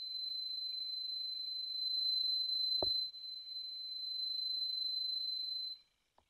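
Small geared motor running with a steady high-pitched whine, a sign of its deliberately compromised gearbox, over a faint low hum. A brief knock comes near the middle, and the motor cuts off abruptly near the end.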